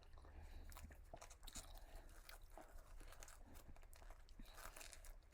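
Faint chewing and crunching of fried food close to the microphone, in soft irregular clicks.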